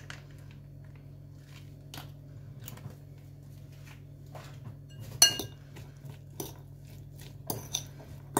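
Metal fork clinking and scraping against a ceramic bowl while stirring mayonnaise into a dry filling of chopped walnuts and prunes, in scattered clicks with a sharper clink about five seconds in.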